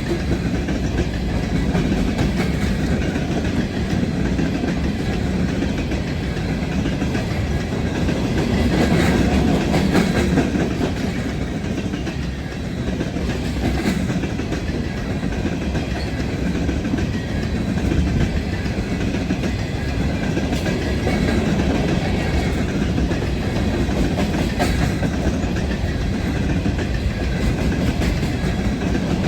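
Train cars rolling past steadily, a continuous rumble of wheels on rail with clickety-clack and occasional clicks.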